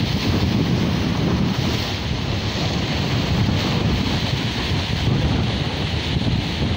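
Sea waves washing and breaking against shoreline rocks, a steady surf hiss, with wind buffeting the microphone.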